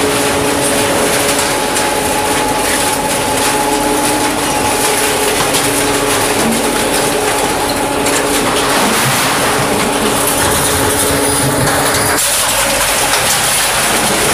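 Twin-shaft scrap metal shredder running under load, chewing sheet-steel roofing and iron profile: continuous loud clattering of metal scrap over a steady machine hum. The hum drops out and the clatter changes character about eight and again twelve seconds in.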